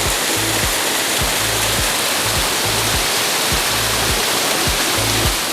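Waterfall rushing: a steady, dense roar of falling water. A background music track's bass line and beat pulse underneath.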